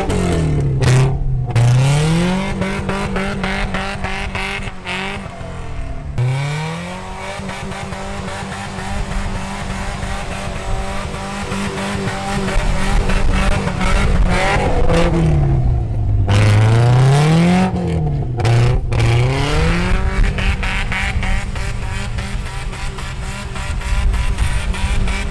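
An off-road vehicle's engine running hard in snow. Its pitch drops and climbs back several times as the revs fall and rise, with a few short breaks in the sound.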